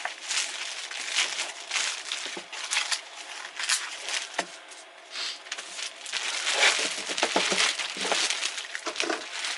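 Plastic bag crinkling and rustling in irregular handling bursts as manuals and papers are pushed back into it.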